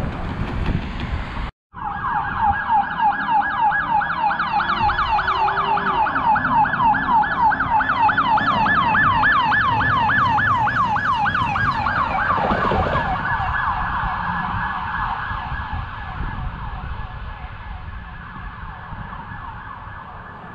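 Emergency vehicle's electronic siren in a fast yelp, sweeping up and down about three times a second as it approaches. About twelve seconds in it drops in pitch as it passes, then fades away. The first second and a half is plain road traffic noise, cut off abruptly before the siren begins.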